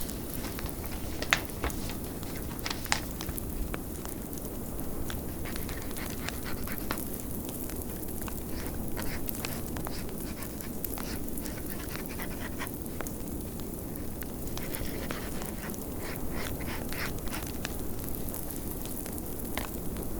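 Wood fire crackling in a fireplace, with scattered sharp pops over a steady, low blizzard wind rushing outside.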